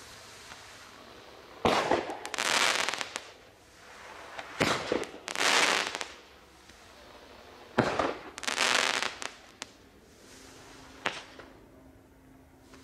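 Bright Star Meteor Mayhem firework rockets going off: three sharp bangs about three seconds apart, each followed by about a second of hissing, then a single bang near the end.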